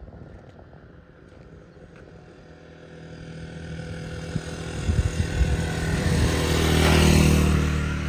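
A vehicle engine running with a steady pitch. It is faint at first, grows steadily louder from about three seconds in, and cuts off abruptly at the end.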